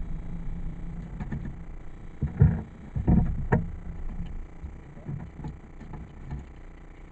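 A few knocks and clicks inside a parked van's cabin, loudest between two and four seconds in, over a low rumble that fades away.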